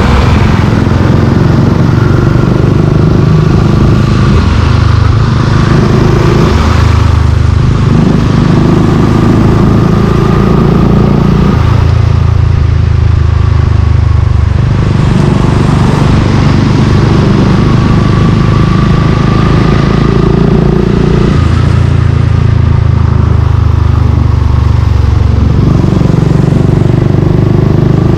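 Suzuki Gixxer 155's single-cylinder engine running through an aftermarket exhaust while riding, its note rising and falling in steps several times as it pulls and eases off.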